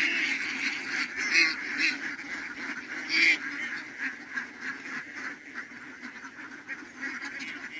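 A large flock of domestic ducks quacking together in a constant chatter, with a few louder calls standing out in the first few seconds.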